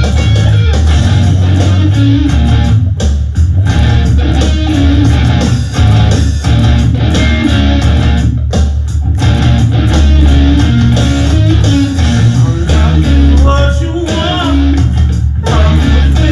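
Amplified electric guitar strummed in a loud, continuous rock jam, with bass guitar holding a steady low end underneath.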